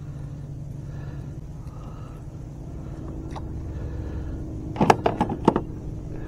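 A boat motor running steadily with a low hum. About five seconds in there is a quick cluster of four or five sharp knocks.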